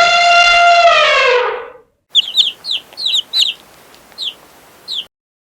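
A rooster crowing: one long, loud call that holds its pitch and then falls away at the end. After a short break come about ten short, high chirps from small birds.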